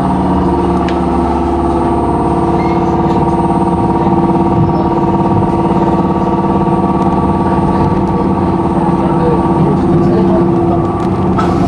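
Onboard running sound of a Chichibu Railway 7500 series electric train pulling away from a station: a steady electrical hum of several level tones over the low rumble of the running gear. The hum cuts off abruptly just before the end.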